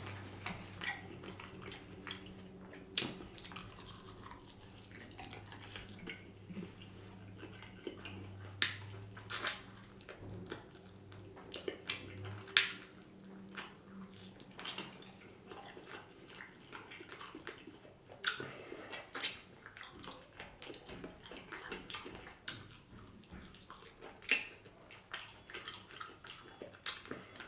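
Close-up eating sounds from chicken wings: scattered wet clicks and smacks of chewing and handling the wings, over a low steady hum that stops about halfway through.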